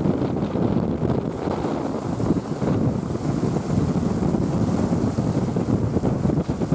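Strong wind buffeting the microphone in a continuous, fluttering rumble, over the wash of Black Sea waves.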